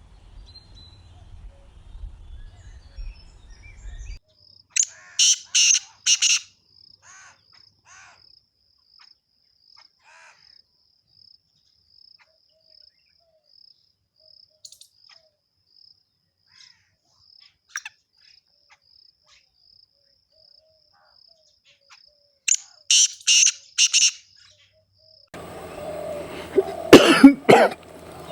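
A bird calling in two bursts of four or five loud, quick notes, some seventeen seconds apart, over a steady high note pulsing about three times a second. Near the end a noisier recording with louder, irregular sounds cuts in.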